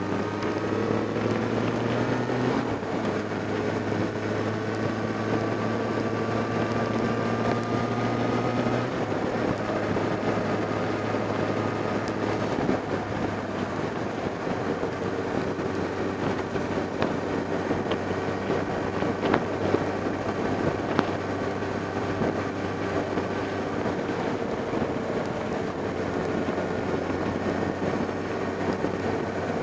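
Motorcycle engine running while riding, with wind and road noise on the microphone. The engine note climbs for the first couple of seconds, then drops and holds steady; a few sharp knocks come about two-thirds of the way through.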